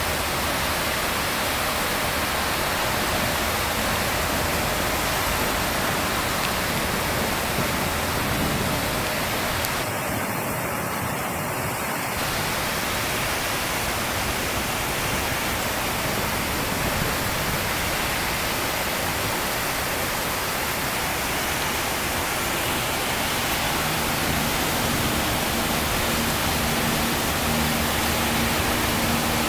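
Rain falling steadily, an even hiss of rain.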